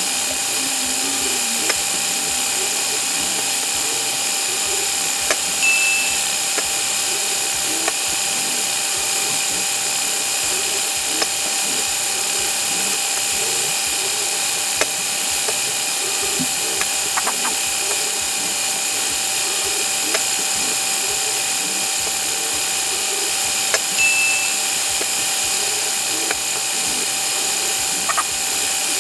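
Lego container crane test rig running its motorised lifting cycle: a steady high whirring of small motors and gearing, with scattered clicks and two short high beeps.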